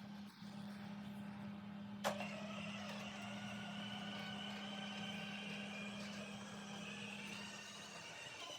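A small mobile robot's electric drive motors whining steadily over a low hum as it drives, with a single sharp click about two seconds in.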